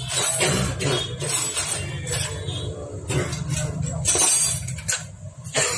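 Repeated sharp metallic clinks and taps of hand tools and parts against a Hero Splendor Plus motorcycle engine during bench assembly, over a steady low hum.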